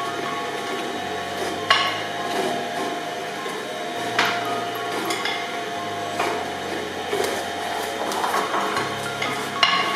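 Twin-shaft shredder running with a steady hum as a frozen red bell pepper rattles and knocks on the turning steel cutter discs, bouncing without being caught. There are sharp knocks about two seconds in and twice more around four to five seconds, then a quick run of knocks near the end.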